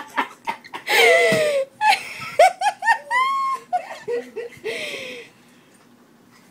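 People laughing hard in high-pitched bursts, dying away about five seconds in.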